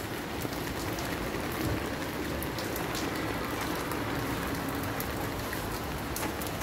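Steady rain falling on wet concrete pavement: a constant even hiss with scattered sharp drop ticks.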